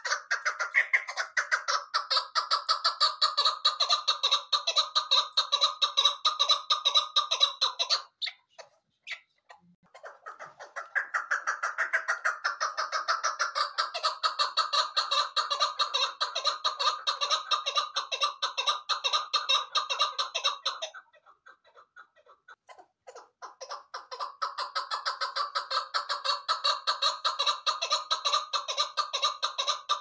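Chukar partridge calling: long runs of rapid, evenly repeated chuck notes, broken twice by short pauses.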